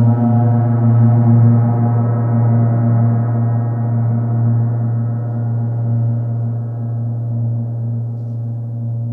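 32-inch hand-hammered stainless-steel gong sounding under a 41.5 mm flumi friction mallet: a steady low hum with a dense stack of overtones, easing slightly toward the end.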